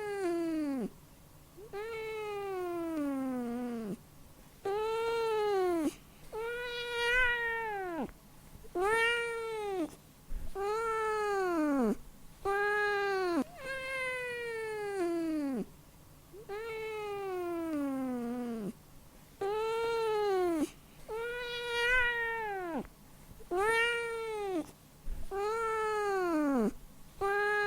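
Domestic cat meowing over and over, about one meow every two seconds, each call rising and then falling in pitch; a few are longer, drawn-out calls that slide down.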